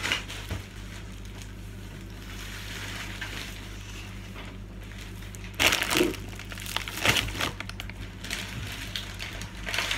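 Plastic grocery bags rustling and crinkling as groceries, including a bagged loaf of bread, are taken out and handled, loudest in two short bursts a little past the middle.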